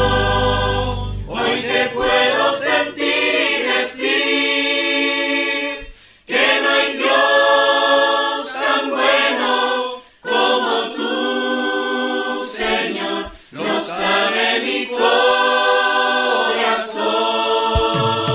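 Choir of men and women singing a Christian song, largely unaccompanied: the band's low backing drops out about a second in and comes back at the very end. The voices sing in phrases separated by short breaks.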